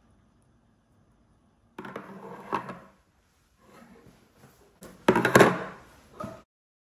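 Knocks and rustling from items being handled on a kitchen countertop: cans of coconut milk and plastic-wrapped packs being moved and set down. It is loudest about five seconds in and cuts off suddenly a little later.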